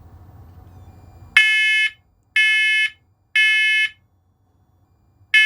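First Alert Onelink smoke alarm sounding its test alarm: three loud, high-pitched beeps about a second apart starting about a second and a half in, a pause, then the next set of three beginning near the end. This is the temporal-three evacuation pattern of a smoke alarm.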